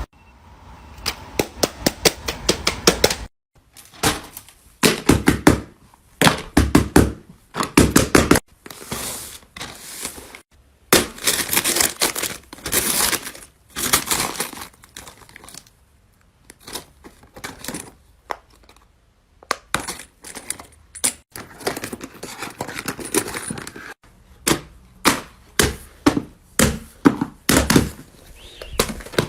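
Plastic fidget toys being handled, giving runs of sharp clicks and pops in quick clusters with some crinkling, broken by short pauses.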